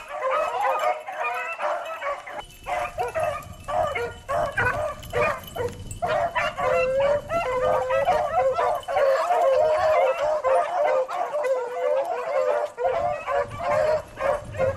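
A pack of beagles baying on a rabbit's trail, several hound voices overlapping without a break and swelling into a fuller chorus about halfway through.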